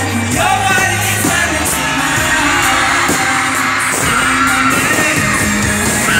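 Amplified live pop music with a male singer, heard from the audience in an arena, with a steady beat and heavy bass under the vocal line.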